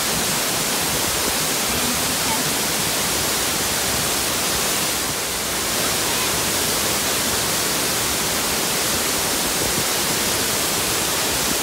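Ramsey Cascades waterfall: water pouring down stepped rock ledges in a steady, even rush of white noise.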